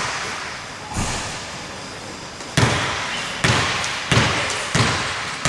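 A basketball bounced on a hardwood court, about six single thuds that echo in a large hall: one about a second in, then a steady series about 0.7 s apart. This is typical of a player bouncing the ball before a free throw.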